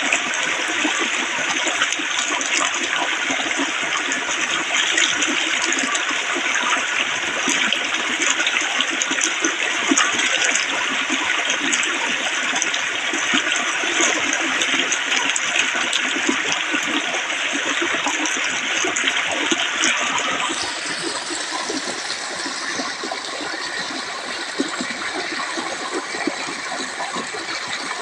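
Flowing water rushing and splashing steadily, with constant small splashes; about two-thirds of the way through the sound shifts and becomes slightly quieter.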